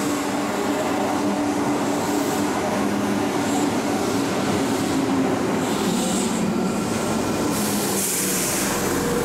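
Keihan Electric Railway electric train running on the rails, a steady rumble with a constant hum, and a burst of high hiss near the end.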